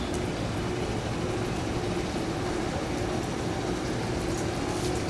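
JR 211 series electric train standing at the platform, its onboard equipment giving a steady hum with a constant tone.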